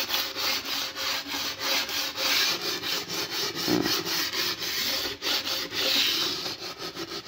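Sandpaper rubbed by hand along the saw-cut edge of a countertop slab in quick back-and-forth strokes, about three a second, smoothing the edge for a clean finish.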